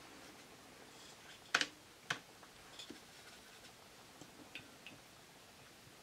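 Light clicks and taps of a paintbrush against a metal watercolour palette tin: two sharper clicks about a second and a half and two seconds in, then a few fainter ticks.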